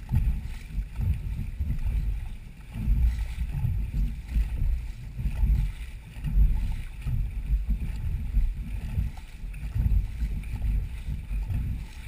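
Dragon boat under paddle: a low rumble of water along the hull and wind buffeting the camera microphone, rising and falling about once a second.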